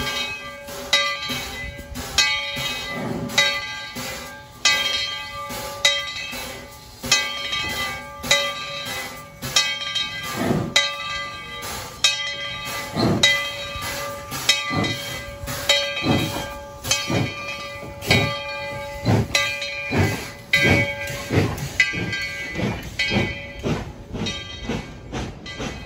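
Tweetsie Railroad No. 12, a narrow-gauge 4-6-0 steam locomotive, pulling away slowly with steady exhaust chuffs about one a second, coming a little quicker later on.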